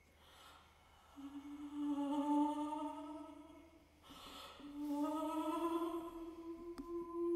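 A soprano voice singing a long, low held note, broken about four seconds in by a breath, then taken up again and held, rising slightly in pitch.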